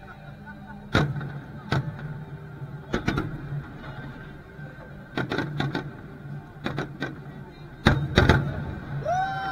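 Aerial firework shells bursting overhead: a series of sharp booms a second or two apart, with a quick cluster near the end, over a steady low hum.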